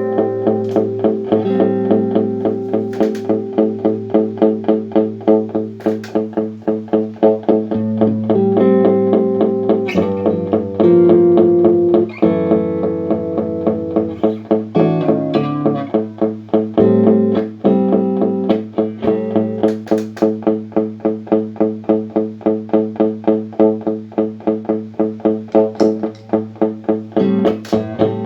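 Guitar played through a Boss RC-1 loop pedal: a steady, evenly repeating strummed pattern with sustained notes layered over it, the sign of the pedal's looping working after its repair.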